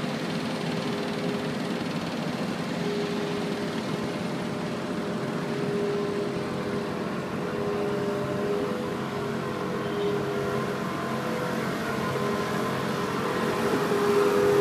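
A vehicle engine running steadily with a low hum, growing louder near the end.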